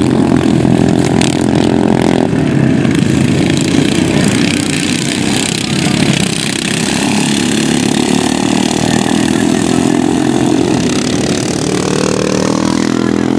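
Several racing ride-on lawn mower engines running hard, one rising in pitch as it accelerates near the end.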